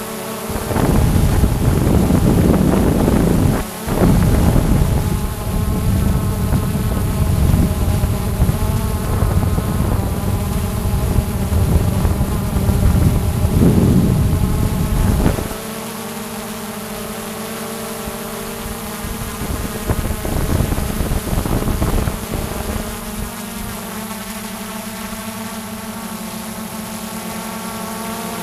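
Xiaomi drone's motors and propellers whining steadily, picked up by the drone's own microphone. A loud low rushing noise lies over the whine for the first half and cuts off suddenly about halfway through.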